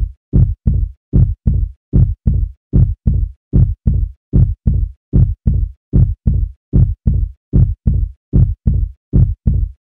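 Heartbeat sound effect: steady pairs of deep thumps, lub-dub, about 80 beats a minute.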